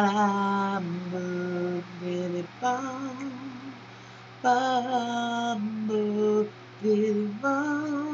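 A woman singing a slow melody in long held notes with a slight vibrato, in several short phrases with brief pauses between them.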